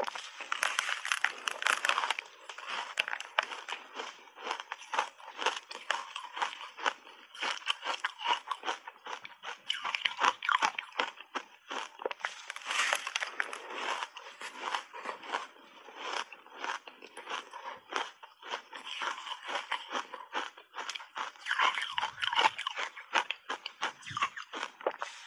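Close-miked biting and chewing of crunchy reshaped ice coated in matcha powder: a dense run of many small, sharp crunches and crackles.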